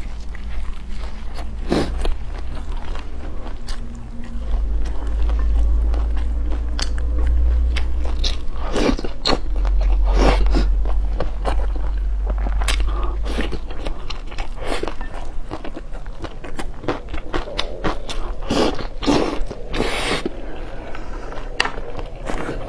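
Close-up eating sounds: a person biting and chewing, with irregular crisp crunches and mouth clicks throughout and a low rumble underneath.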